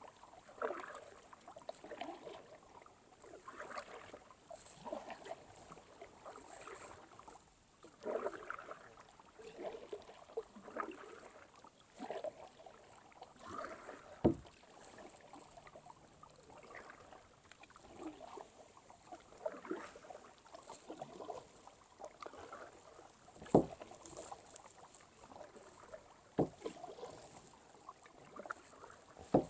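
Kayak paddle strokes dipping and splashing in the water, about one every second and a half to two seconds, with a few sharp knocks in between.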